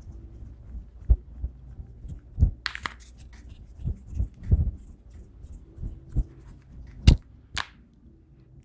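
Makeup items being handled: a series of dull, low knocks and taps, with a few short hissing bursts, one near the start and two close together near the end.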